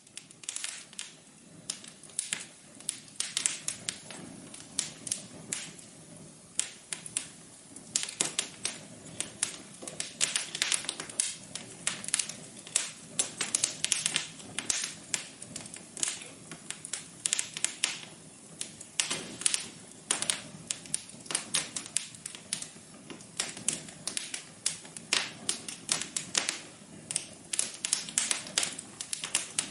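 Wood fire crackling in a fireplace: a continuous run of irregular sharp pops and snaps, several a second.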